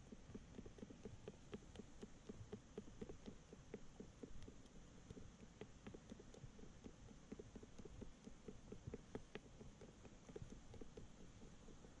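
Faint, rhythmic squishing of dough being kneaded by a gloved hand in a plastic tub, several soft squelches a second, with a few sharper clicks among them.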